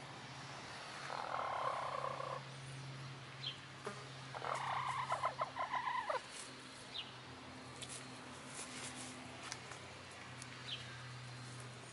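Brown laying hens clucking: a short grating call about a second in, then a quick run of clucks around the middle. A few faint high chirps and a steady low hum lie underneath.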